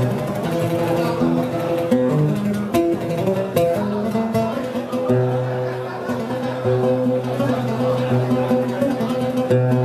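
Oud played with a plectrum: a run of plucked notes picking out a melody, with a low held tone sounding underneath from about halfway.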